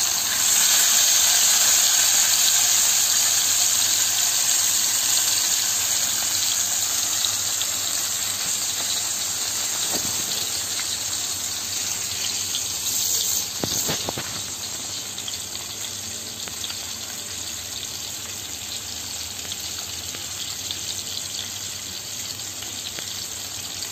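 Mullet fish shallow-frying in hot peanut oil: a steady sizzle, loudest just as the last fish goes into the pan and easing off gradually. A few sharp pops or clicks come about ten and fourteen seconds in.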